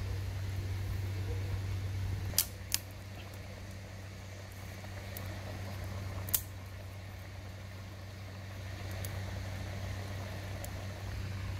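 Dry twigs snapping sharply by hand: two snaps close together about two and a half seconds in, and a third about six seconds in, over a low steady hum.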